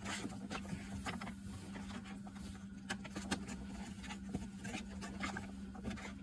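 Disposable wooden chopsticks stirring and lifting noodles in a cup ramen cup, with irregular small clicks and scrapes against the cup. A steady low hum runs underneath.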